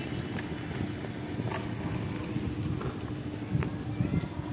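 Wind buffeting the microphone outdoors, a dense low rumble with a faint steady hum underneath and a few faint short high ticks.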